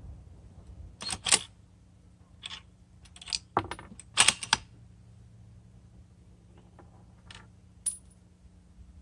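Bolt of a Savage bolt-action rifle in .243 Win being worked after a shot: a quick run of metallic clicks and clacks as the bolt is lifted, drawn back to eject the fired case and pushed forward to chamber the next round, then two lighter clicks near the end.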